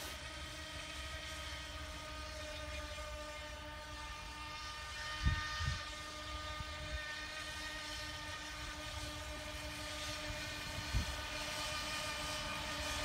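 Electric motors of H102 RC speedboats running flat out across the water, a steady whine of several tones. A few short low thumps come about five and eleven seconds in.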